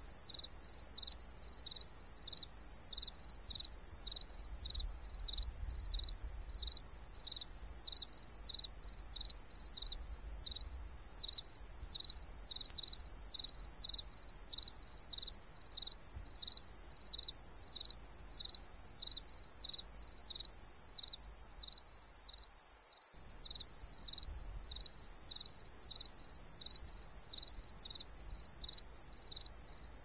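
Field cricket chirping in an even rhythm, about one and a half short chirps a second, over a steady high-pitched insect drone.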